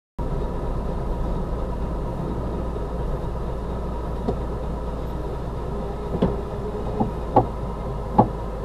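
Steady low drone of a car's engine and cabin, heard from inside while it rolls at walking pace, with a few short, irregular light knocks in the second half.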